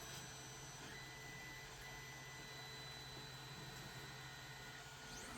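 Quiet room tone: a faint steady hum and hiss, with no distinct handling sounds.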